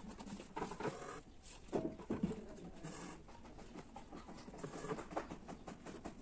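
Irregular, faint scratchy rustling and small ticks from a needle and thread being pushed and drawn through fabric held taut in an embroidery hoop.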